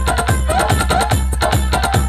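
Loud dance music played through a large DJ sound-box system: heavy bass under a fast, even drum beat, with each drum hit dropping in pitch, and melody riffs above.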